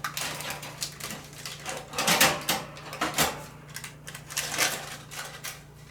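Clicks and knocks of a pizza on its tray being slid into a toaster oven, with metal rack and tray clattering, loudest about two seconds in.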